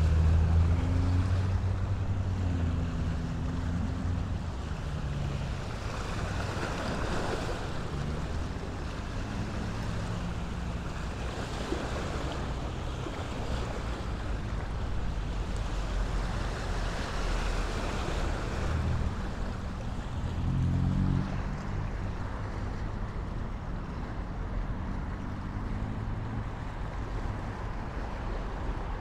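Steady outdoor rush of wind and water along the shore, mixed with the low drone of passing traffic engines. The drone is strongest at the very start and swells again about twenty seconds in.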